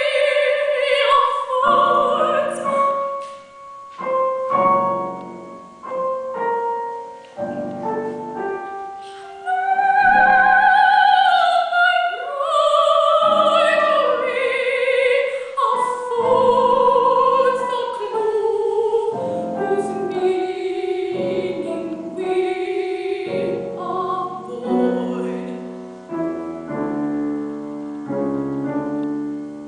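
Female classical singer with vibrato singing an art song, accompanied by piano. Near the end the voice stops and the piano plays on alone.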